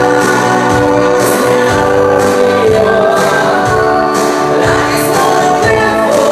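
Live band music: amplified singing in long held notes over keyboard and a regular drum beat.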